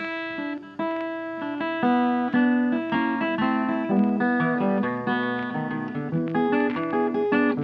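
Background music: plucked and strummed guitar playing a melody over changing notes.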